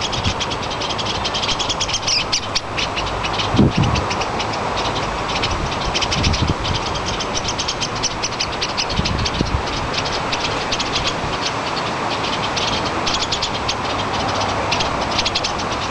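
Small songbirds' rapid, chattering alarm calls, many short chips a second with brief gaps, scolding a black rat snake that is raiding their nest box. A steady low rumble runs underneath.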